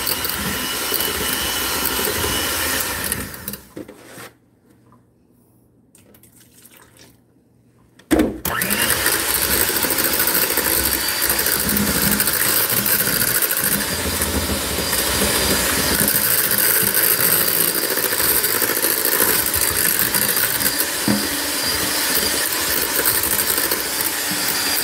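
Electric hand mixer running, its beaters creaming boiled potatoes in a metal saucepan. It winds down and goes quiet for about four seconds in the middle, then starts again abruptly and runs steadily.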